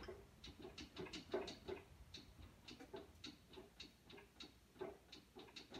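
Faint, irregular clicks and light clunks, a few a second, from a rear axle's ring-and-pinion gears as the axle is rocked back and forth by hand. This is loose gear lash: a sloppy, non-positraction rear end with a lot of play in the gear, which the owner also thinks sounds empty.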